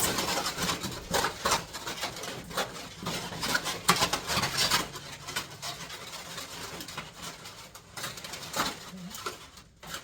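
Irregular rustling and knocking, the sound of building materials being handled. It is busiest in the first half and dies down near the end.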